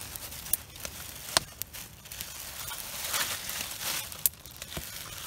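Plastic bag and aluminium foil rustling and crinkling as hands handle raw meat, with a few sharp clicks.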